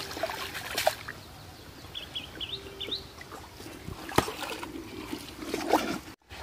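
Water splashing and dripping as a framed hand net is lifted out of shallow paddy-field water, with water trickling through the mesh and a few sharp splashes and knocks.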